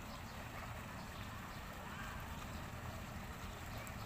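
Faint steady outdoor background noise with no distinct sounds.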